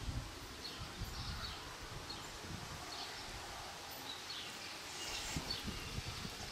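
Outdoor field ambience: wind buffeting the microphone in irregular low rumbles, with short, faint bird chirps coming every half second or so.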